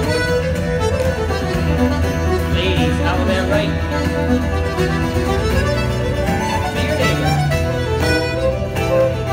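Live dance band playing a reel: fiddle carrying the tune with button accordion, over strummed acoustic guitar, at a steady full level.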